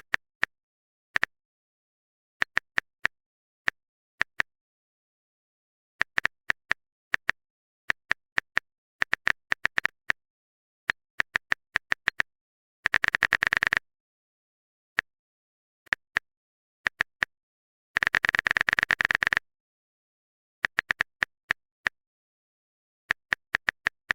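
Series of short, sharp clicks at irregular intervals, singly and in small groups, with two fast runs of rapid clicking about thirteen and eighteen seconds in.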